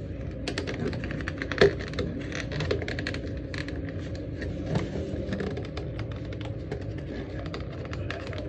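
Light clicks and taps of Aeropress parts and packaging being handled and unpacked, in a rapid irregular run with one sharper knock about a second and a half in.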